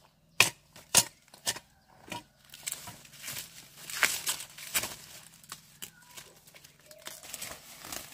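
About five sharp knocks in the first two seconds, like a tool striking, then crackling and rustling as plants and leaves are pulled and handled.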